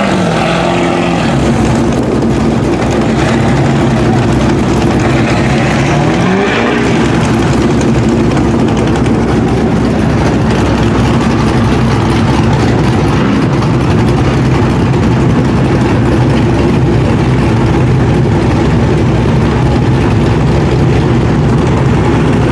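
Lifted mud truck's engine running under load, revving up at the start and again about six seconds in, then holding a steady drone.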